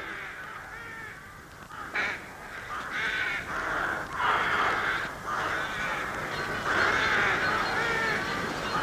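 A flock of crows cawing, many calls overlapping. After a sudden sharp sound about two seconds in, the cawing grows louder and denser.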